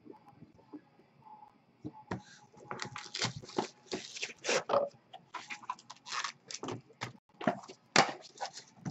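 Cardboard trading-card boxes handled on a desk: irregular rustling and scraping as boxes are picked up, shuffled and moved, with a couple of knocks as they are set down, starting about two seconds in.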